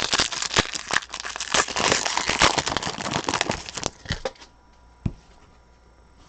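Crinkling and crackling of plastic packaging being handled while trading cards are sorted, with many small sharp clicks. It stops abruptly about four seconds in, and one light click follows.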